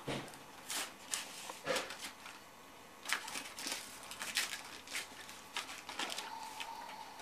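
Cellophane and gift wrap crinkling and rustling in short, irregular crackles.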